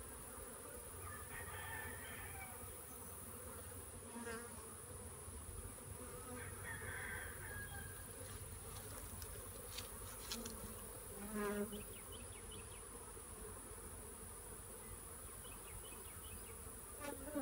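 Honeybees buzzing steadily around an open hive during a frame transfer, with a few faint clicks about ten seconds in.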